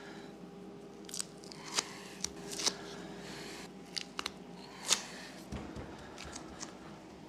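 Gloved hands pressing and rubbing carpet down onto glue-tacky plywood: scattered short crackles and sticky peeling sounds as the nitrile gloves pull off the tacky spray adhesive and carpet fibres, over a steady low hum.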